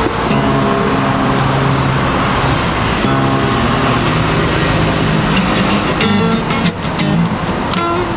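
Acoustic guitar being played: chords left to ring for the first few seconds, then quicker, sharper strokes from about five seconds in.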